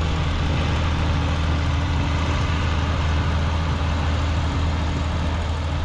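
Ford TW20 tractor's six-cylinder diesel engine running steadily with a deep, even hum, a constant rushing hiss over it.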